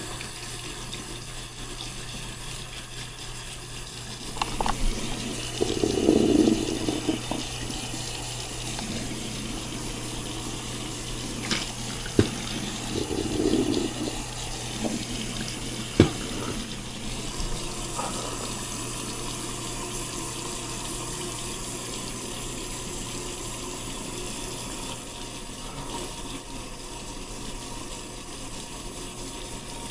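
Water running steadily, with some rustling and a few sharp knocks partway through.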